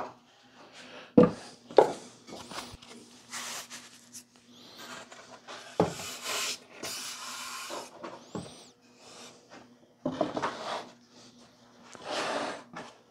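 Small wooden box being handled on a wooden router table: a few sharp knocks as it is set down, and several short scraping, rubbing sounds as it is slid across the top, over a faint steady low hum.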